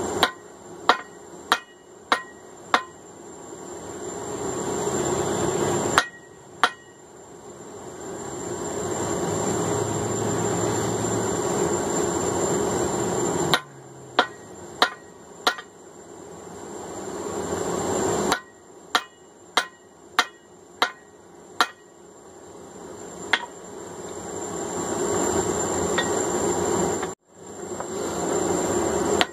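Hand hammer striking hot steel on an anvil in short runs of sharp blows while drawing out the diagonal peen of a hammer head. Between the runs a steady rushing noise builds up and cuts off abruptly.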